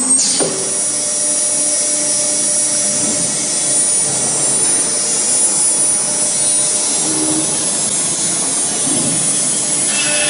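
CNC router spindle running at full speed with a steady high whine under a noisy hiss, having just spun up to speed with the second tool. Near the end, further tones join in.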